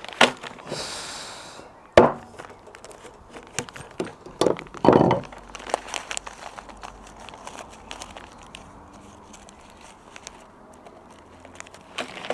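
Clicks, knocks and a short scrape of bolts, washers and wooden slats being handled and fitted to cast iron bench ends; the loudest knock comes about two seconds in and another cluster around five seconds, then quieter handling with a last click near the end.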